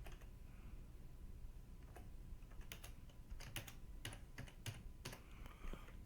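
Typing on a computer keyboard: faint, irregular keystrokes in short bursts with pauses between them.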